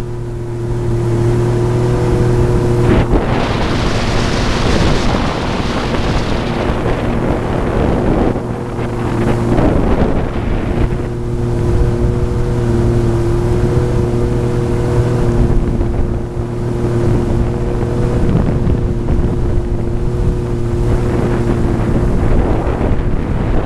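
Jet ski engine running at a steady cruising speed under way, a constant hum. Wind buffets the microphone at times, with water rushing past.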